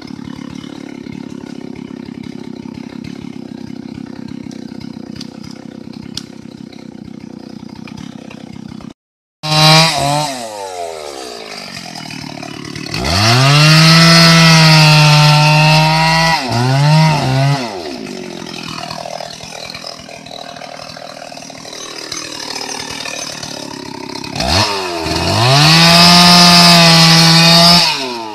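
Two-stroke chainsaw cutting into the base of an Indian rosewood (sonokeling) trunk. After a steady low hum, it is revved up about a third of the way in and runs at full throttle for a few seconds. It drops briefly, then idles, and goes back to full throttle near the end.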